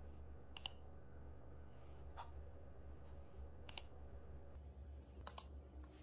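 Computer mouse clicking four times, roughly every one and a half seconds, the last a quick double click, over a faint steady low hum.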